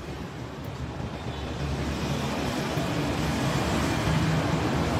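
Steady motor-vehicle rumble, like road traffic, growing louder from about two seconds in.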